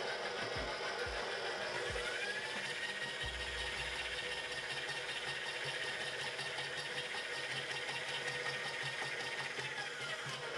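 Electric stand mixer running steadily with its dough hook turning through flour and oil in a stainless steel bowl. A high whine comes in about two seconds in, holds, and falls away near the end.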